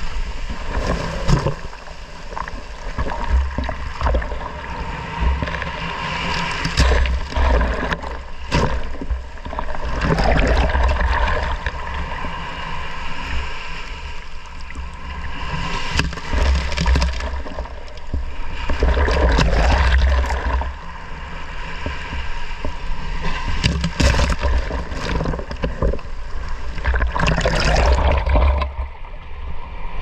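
Small sea waves surging up a sandy beach and washing right over a camera at the water's edge: water sloshing and splashing on the microphone over a low rumble, swelling with each incoming wave every few seconds.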